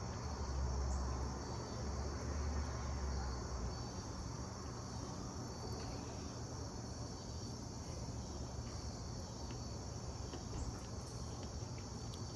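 Steady, high-pitched chorus of crickets and katydids. A low rumble sits under it for the first few seconds.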